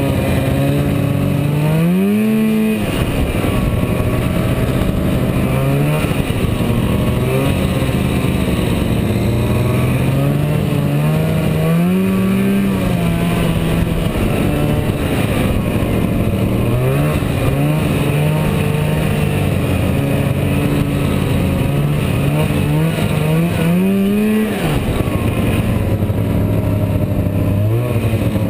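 Arctic Cat Jag 440 snowmobile's two-stroke engine running under way. The engine note climbs and drops with the throttle several times, with the sharpest climbs about two seconds in, around twelve seconds and around twenty-four seconds.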